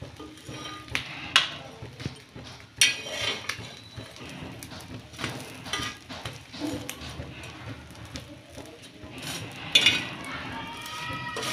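Metal spatula scraping and clacking against a flat griddle as bread slices and a fried egg are flipped and moved, with a few sharp knocks, the loudest about a second and a half in, near three seconds, and near the end.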